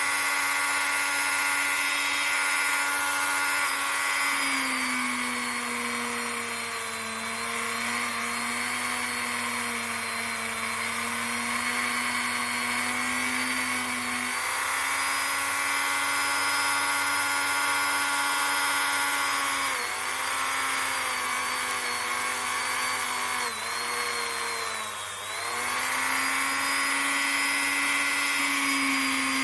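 Dremel rotary tool running at high speed, a steady whine whose pitch sags and recovers several times as its bit is pressed against the revolver's small steel hammer and trigger parts.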